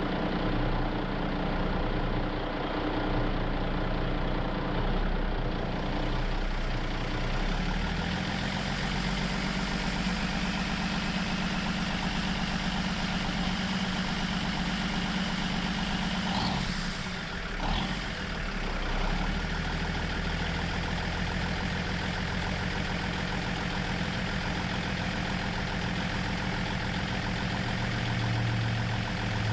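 Heavy truck engine running steadily, with shifts in its pitch about a third of the way in and near the end, and a brief dip about 17 seconds in.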